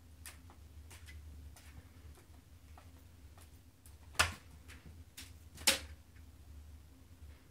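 Ragamuffin kitten pouncing on a plastic ball-track cat toy: scattered light clicks and taps, with two sharp plastic knocks about four and five and a half seconds in.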